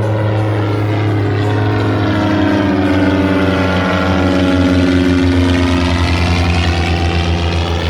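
Piston-engine aerobatic propeller airplane flying a low pass: a steady engine-and-propeller drone whose pitch falls around the middle as it goes by.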